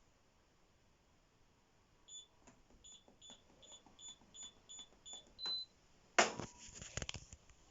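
Hoover H-Wash 500 washing machine control panel beeping: a quick series of about nine short high beeps with small clicks of buttons, then one longer beep, as the machine is put into service mode. Just after, a sudden loud clatter lasting about a second.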